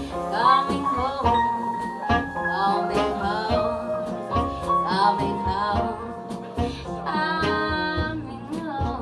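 Live band music: a woman singing over guitar, double bass, piano and drums.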